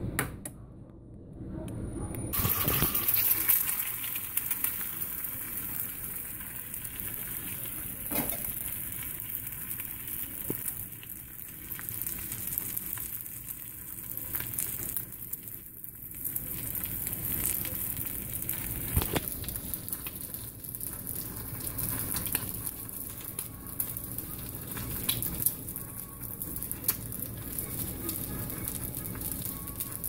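An egg frying in a small skillet: a steady sizzle with scattered small crackles, starting suddenly about two seconds in.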